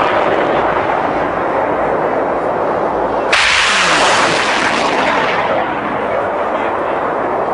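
BM-27 Uragan multiple rocket launcher firing 220 mm rockets. A sudden blast about three seconds in is followed by a long rushing roar that slowly fades, laid over the still-fading roar of the launch just before it.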